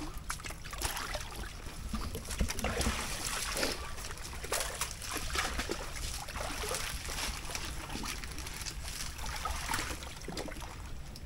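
Muddy water splashing and sloshing as a person wades through it and works with his hands below the surface, with irregular crackles and rustles of dry palm fronds being pushed aside.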